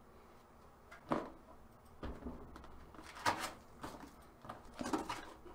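Cardboard box being handled and opened: several short, soft scrapes and knocks as the carton is moved and its flaps folded back, with one duller thump about two seconds in.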